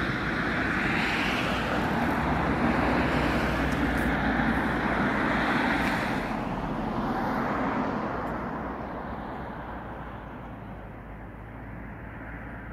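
Road traffic going past: a steady rush of tyre and engine noise that swells several times as vehicles pass, then slowly fades toward the end.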